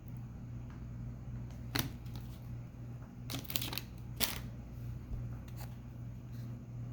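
Trading cards being handled and flipped through, a few short card-slides and flicks about two seconds in and in a quick cluster around three and a half to four seconds, over a steady low hum.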